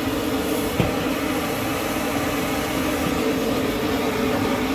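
Rice vermicelli stir-frying in a steel wok over a gas burner: a steady rushing noise from the flame and the frying, with a sharp clink of the metal spatula against the wok about a second in.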